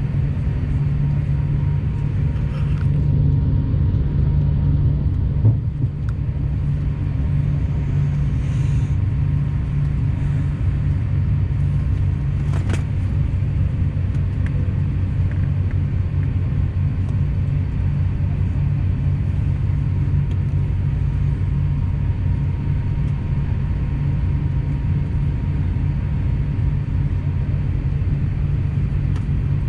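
Steady low rumble of cabin noise aboard an Airbus A350-900 airliner, with a faint steady whine over it and a couple of brief clicks.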